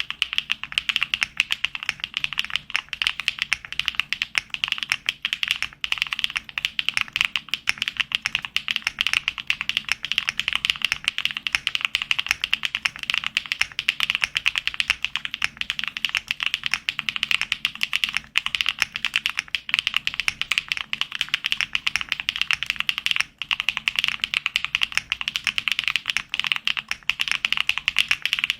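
Fast, continuous typing on a Neo65 mechanical keyboard with HMX Cloud linear switches: a dense stream of key clicks and clacks, with one short pause about 23 seconds in.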